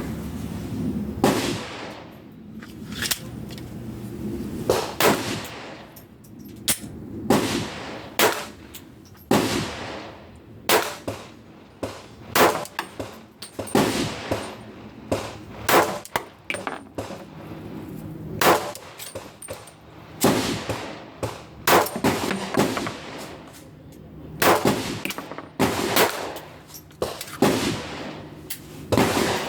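Pistol shots from a Glock 43 chambered in 9x21 being test-fired, one shot at a time at an uneven pace, mostly a second or two apart with some quicker pairs.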